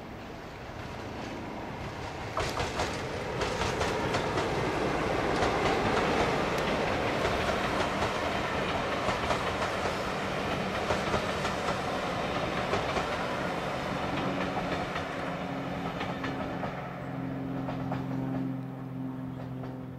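A diesel-hauled heritage train passing, its wheels clicking rhythmically over rail joints as it comes by. A steady engine hum with several tones comes in near the end.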